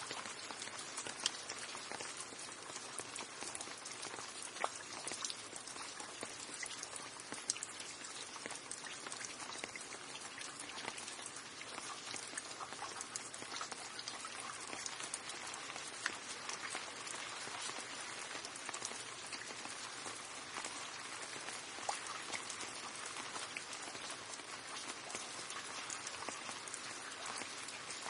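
Steady rain falling, a dense even hiss of drops with scattered sharper individual drips on a hard surface.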